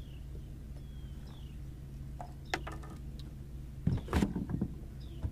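A few knocks and thumps about four seconds in as a blue catfish is lifted and handled with fish grips in an aluminum boat. Under them runs a steady low hum, with a few short falling chirps.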